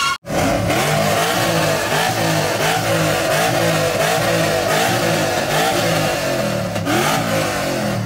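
Pickup truck engine revved over and over in quick blips, its pitch rising and falling about twice a second, with loud exhaust noise.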